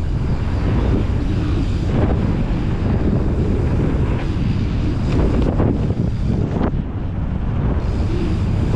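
Wind buffeting a helmet-mounted microphone on a fast downhill ride down a dirt trail, with the rumble of tyres on dirt and several knocks as the bike and rider jolt over bumps and jumps.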